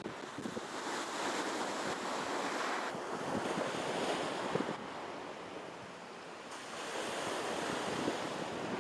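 Black Sea waves washing and splashing, with wind gusting on the phone's microphone. The sound eases a little past the middle, then picks up again.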